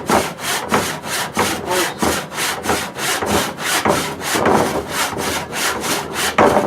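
Rusty hand saw cutting through a wooden stool leg, with steady back-and-forth strokes at about three a second.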